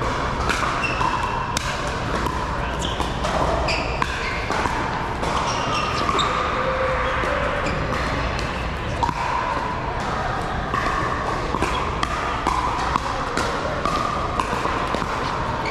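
Pickleball rally indoors: repeated sharp pops of paddles striking the plastic ball, mixed with hits from neighbouring courts. Echoing hall noise and a murmur of voices sit underneath.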